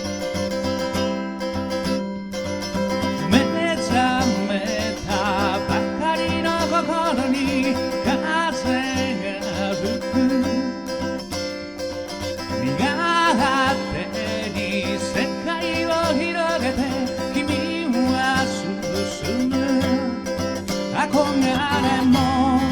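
Acoustic guitar playing a song's instrumental introduction: steady picked and strummed chords, with a melody line that wavers in pitch coming in about three seconds in and running over them.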